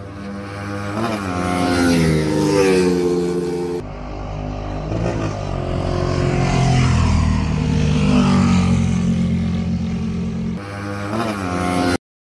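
Single-cylinder motorcycles, a ported high-compression Suzuki Raider 150 Fi and a Yamaha Sniper 155 VVA, accelerating at full throttle, engine pitch climbing through the gears as they come up and pass. The sound changes abruptly about four seconds in and again near the end, then cuts to silence.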